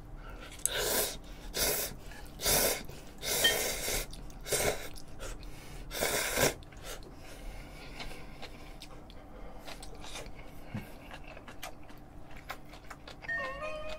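A person slurping ramyeon noodles up from the bowl with chopsticks: about six short, loud slurps in the first six and a half seconds, then softer eating sounds.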